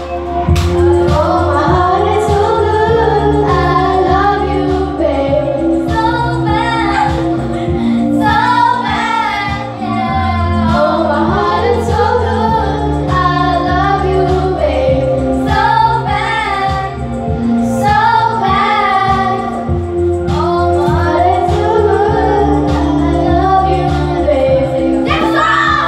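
A young woman singing karaoke into a microphone over a loud backing track with a steady bass line.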